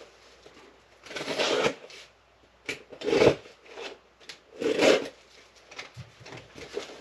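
Rustling and scraping of packing material in a cardboard shipping box as parts are lifted out, in three louder bursts with softer rubbing between.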